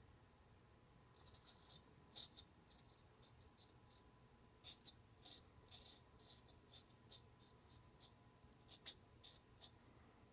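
Faint, short scratchy strokes of a Gold Monkey straight razor scraping stubble through shaving lather on the cheek and jaw. The strokes come in irregular runs.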